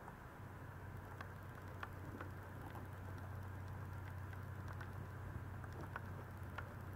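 Young Maltese puppies crawling over each other on a pet pad: faint, irregular light ticks and scratches from their claws and paws. A low steady hum sits underneath and stops near the end.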